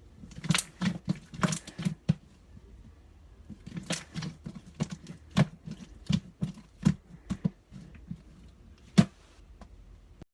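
Keys typed on a keyboard: irregular clicks, a short burst, a pause, a longer run of keystrokes, then one loud single keystroke about nine seconds in.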